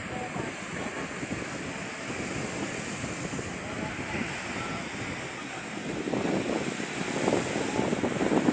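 Strong sea wind buffeting the microphone over waves breaking on the beach. The gusts grow louder about six seconds in.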